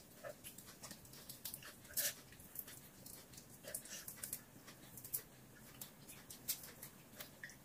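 Faint, irregular crackling clicks of cooked shrimp shells being peeled apart by hand.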